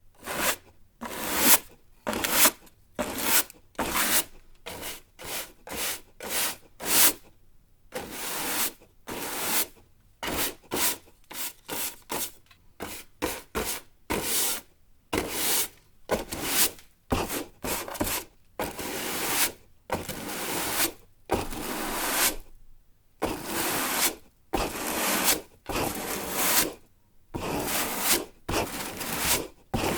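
Broom sweeping a floor: a long run of brisk bristle strokes scraping across the surface, each a short swish, at about one to two strokes a second with short pauses between.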